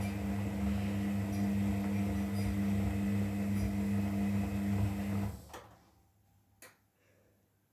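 Beko 5 kg washing machine running with a steady electric hum that cuts off about five seconds in, followed by a faint click.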